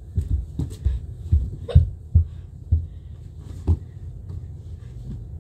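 Bare feet thudding up carpeted stairs, about eight irregular dull thumps over the first four seconds.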